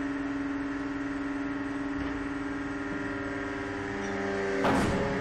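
A steady droning hum made of several held tones. Near the end it is broken by two loud whooshing swells.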